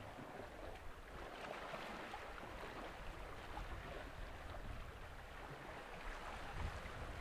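Steady hiss of water washing against the shore, with a few small splashes in it. Uneven low wind rumble on the microphone comes and goes, heavier near the end.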